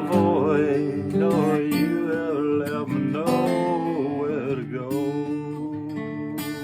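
Acoustic guitar strummed with a voice singing long, wavering notes without clear words; about five seconds in the voice stops and the guitar rings on alone.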